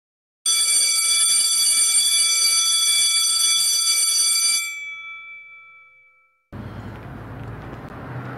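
Electric school bell ringing loudly and steadily for about four seconds, then stopping and ringing out as it fades away.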